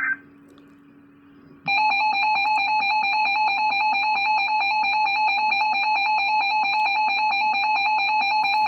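Weather radio emergency alert tone: a steady, loud electronic tone comes on about two seconds in and holds without change, signalling that a new warning is about to be read. Just before it, the tail end of a short warbling data burst cuts off.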